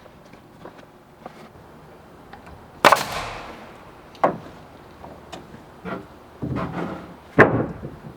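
Wooden boards knocking and banging as lumber is handled: five or so sharp, irregular impacts, the loudest about three seconds in with a brief ringing tail and another near the end, with a short rattle of knocks just before it.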